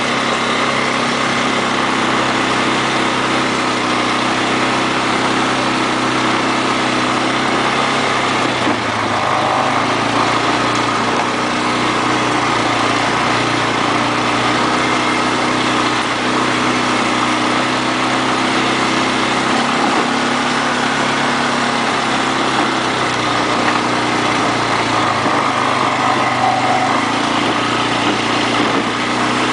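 ATV engine running steadily, its pitch shifting up and down a few times as the throttle changes.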